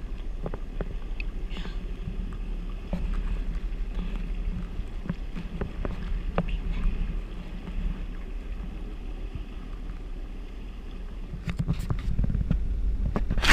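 Jet ski engine running at low, no-wake speed, a steady low hum with water slapping the hull, getting louder near the end.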